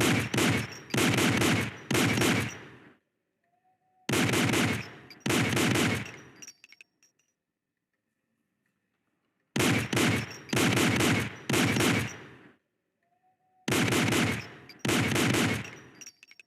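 M1911 pistol shots fired in quick groups: three, then two, then three, then two, about a second apart within each group, each shot with a short reverberant tail. Faint metallic clinks follow some of the groups.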